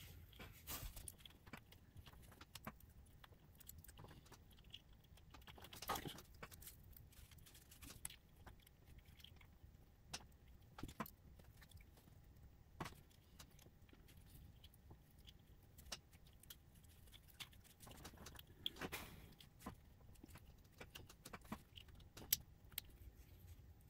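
Faint, scattered clicks and light taps of small plastic and metal parts being handled and fitted together on an HO scale model steam locomotive, with two louder handling noises, one about six seconds in and another near nineteen seconds.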